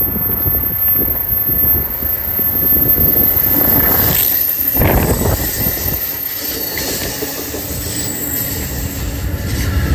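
Bilevel passenger train running past close by on a curve, the steel wheels rumbling and clacking over the track, with two loud clunks about four to five seconds in and a faint high wheel squeal later on.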